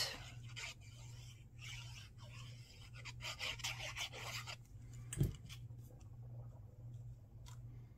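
Faint scratching and rubbing of a fine-tip glue bottle's nozzle dragged across cardstock as glue is squeezed on in squiggles, then a soft thump about five seconds in as the panel is pressed down onto the card.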